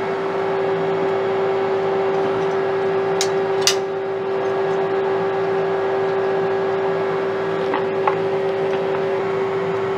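Steady hum of a powered, idling CNC lathe with one strong steady tone. Light metallic clicks as gloved hands handle metal parts at the tool turret: two sharp ones a little after three seconds in and two fainter ones about eight seconds in.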